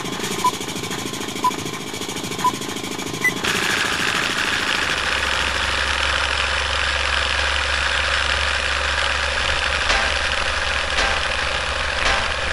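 Film projector sound effect: the fast clatter of the projector's film mechanism, with a short beep once a second for the first three seconds. About three and a half seconds in it changes to a steady whirring hiss over a low hum, with faint ticks about once a second near the end as the countdown leader runs.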